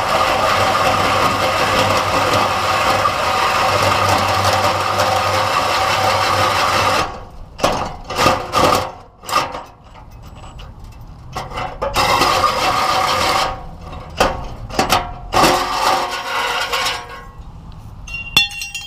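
Power drill driving a hole saw through a steel truck bumper, the teeth grinding into the metal. It runs steadily for about seven seconds, then in short stop-and-start bursts until near the end.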